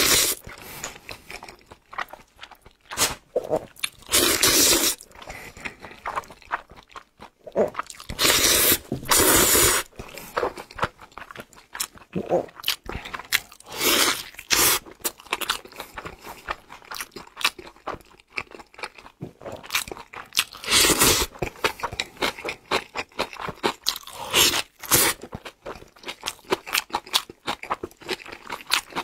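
Close-miked eating: wet chewing and smacking with many short crunches and bites. Several louder, drawn-out slurps come from black bean noodles being sucked in.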